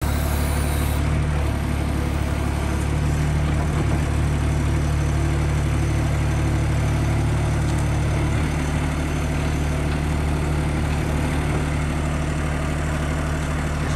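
Mini skid steer loader's engine idling steadily.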